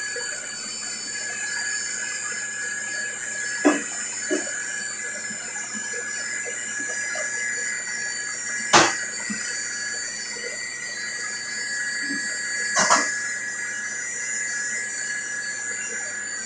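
Steady high hiss and hum of a commercial kitchen's gas range and exhaust hood, broken by sharp metal clanks: one about four seconds in, the loudest midway, and a double clank near the end.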